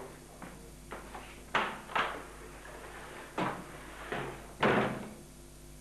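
A hand banging on a wooden door: a series of irregular knocks, faint at first, then heavier, each with a short ring-out.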